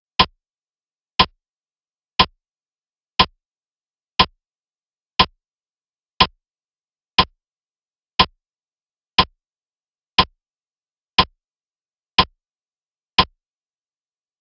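Ticking-clock sound effect counting off the answer time for a quiz question: fourteen short, identical ticks, one each second, with silence between them.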